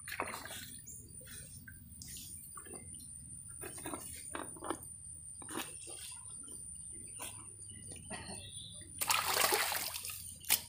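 Shallow river water splashing and sloshing as a skinned goat carcass is rinsed and dunked, with scattered small splashes and knocks and a louder splash about nine seconds in. A single sharp knock comes just before the end.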